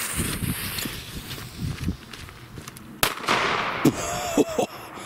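Lit fuse of a red Corsair category 2 firecracker fizzing for about three seconds, then one sharp, very loud bang with a lot of punch ("richtig druckvoll").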